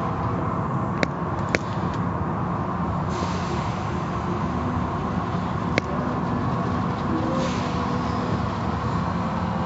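Automatic tunnel car wash heard from inside the car: a steady, dense rumble of wash machinery and water spraying on the car, with a few sharp clicks about one, one and a half and six seconds in. The hiss of the spray grows louder from about three seconds in to about seven.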